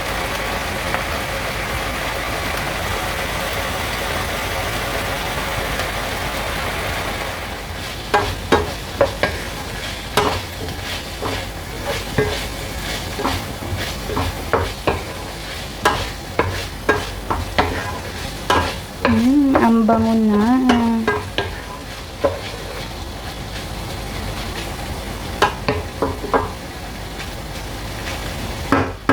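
Minced beef, pepper and onion sizzling as they fry in a non-stick frying pan. After about seven seconds the food is stirred and broken up, with repeated clicks and scrapes of the utensil against the pan and a brief wavering tone about two-thirds of the way through.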